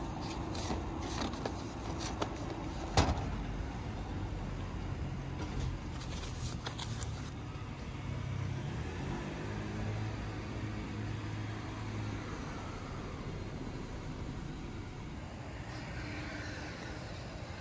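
Street traffic noise with a motor vehicle's low engine hum from about five to twelve seconds in. A few clicks and one sharp knock come about three seconds in.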